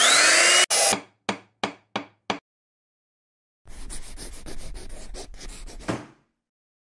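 Intro sound effects: a loud whirring saw-blade sound lasting under a second, then five sharp knocks about a third of a second apart. After a short pause comes the quick scratching of a marker writing on a board, in rapid strokes, for about two seconds.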